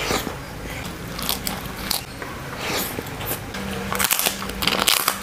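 Close-up eating sounds: chewing with a run of crisp crunches. The loudest crunches come about four seconds in and near the end, as a dry cassava cracker (kerupuk opak) is bitten.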